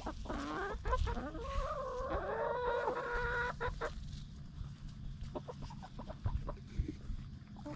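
Backyard hens clucking: one long, wavering call over the first three seconds or so, then scattered sharp taps of hens pecking scratch grains off the dirt.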